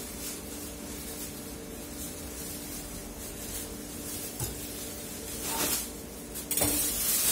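Plastic bag crinkling and rustling as raw chicken breast is handled in it, loudest in two bursts near the end, over a faint steady hum.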